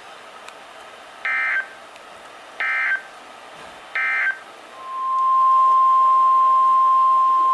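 Emergency Alert System signalling. First come three short, evenly spaced screeching bursts of SAME digital alert data. Then a single steady NOAA Weather Radio warning alarm tone swells up about five seconds in and holds, louder than the bursts, announcing the next warning.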